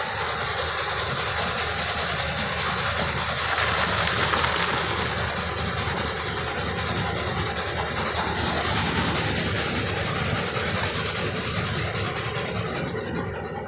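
Garlic clove-breaking and grading machine running, a steady loud hiss with a low mechanical rumble underneath as cloves pour from its chutes.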